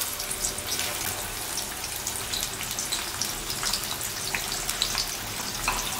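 Sliced onions sizzling in hot oil just after being dropped into the pot, a steady hiss with many small crackling pops. This is the start of frying the onions until golden.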